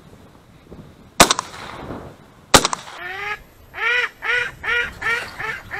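Two shotgun shots about a second and a half apart, then a duck quacking in a quick, even series of about six quacks.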